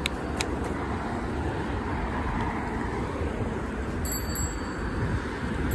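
Steady rumble of a folding bike being ridden on a tarmac path: wind on the microphone and tyre noise, with road traffic alongside. A few light clicks and rattles from the bike, near the start and about four seconds in.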